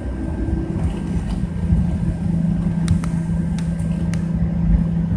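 Cabin noise of a Boeing 737-900ER taxiing: a steady low rumble with a constant hum from the engines and airframe, which grows steadier about one and a half seconds in.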